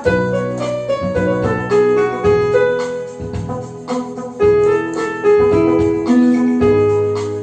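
Electronic keyboard playing a song melody in a piano-like voice, with single notes struck over sustained lower chords.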